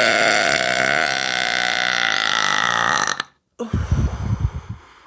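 A woman's big, loud, drawn-out burp held for about three seconds, cutting off abruptly. A brief, rough, low rumble follows about a second later.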